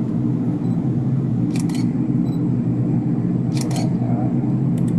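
Steady low background hum with three short, sharp double clicks: about a second and a half in, about three and a half seconds in, and near the end.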